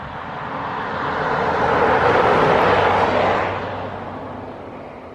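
A vehicle passing by: a rushing noise that swells for about two seconds, peaks near the middle and fades away.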